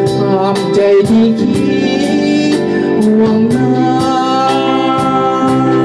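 Live band playing a song on keyboard and electric guitar with a singer, over a steady beat struck about twice a second.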